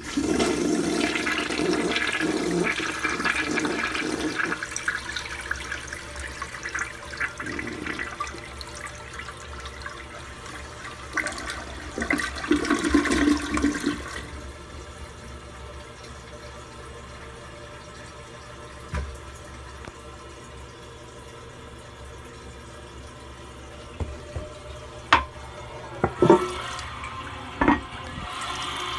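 A 1983 American Standard Cadet toilet flushing through its tilt flush valve: water rushes loudly into the bowl and down the drain for about fourteen seconds. Then a quieter, steady run of water follows as it refills, with a few sharp knocks near the end.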